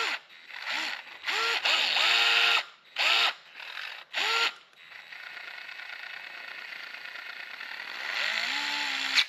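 DeWalt 8-volt gyroscopic screwdriver driving a screw into a metal electrical box. The motor runs in about six short spurts, each rising in pitch as it spins up, then runs more steadily and spins up once more near the end. Its speed is set by how far the wrist is twisted.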